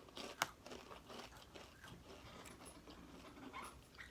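Crunching and chewing of Takis rolled tortilla chips, with a sharp crunch about half a second in, then quieter irregular chewing.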